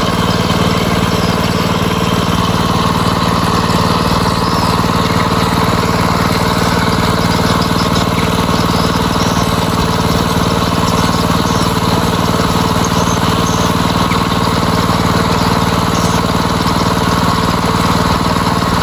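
Kubota M6040SU tractor's diesel engine idling steadily.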